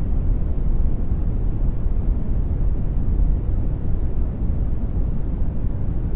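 Generated brown noise: a steady, deep rumbling hiss with no changes.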